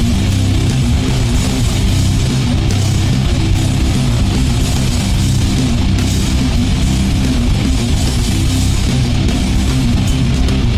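Heavy rock music with electric guitar, playing steadily and loud.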